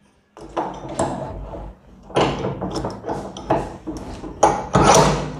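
A short iron pipe and tools being handled and set down on a wooden workbench: a series of irregular knocks and scrapes, the loudest near the end.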